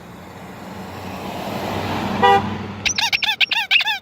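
A car approaching and passing, its road noise growing, and giving one short honk a little past halfway. Then a hand-held horn answers with a quick run of about six short toots, each wavering in pitch.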